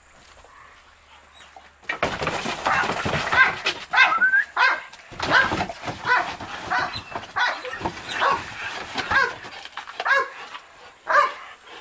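Belgian Malinois barking over and over, about two to three short barks a second, starting about two seconds in after a quieter opening.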